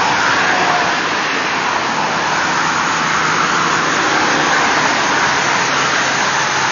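Steady noise of freeway traffic: car tyres on the road surface.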